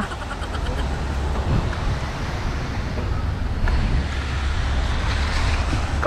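Steady rush of wind buffeting the camera microphone with a low rumble, as from riding a mountain bike along a trail.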